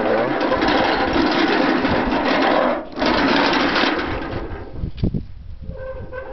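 Steel pedal car rolling across rough asphalt: its hard rubber wheels crunching and its sheet-metal body rattling steadily. It dies down about four seconds in, with a couple of knocks after.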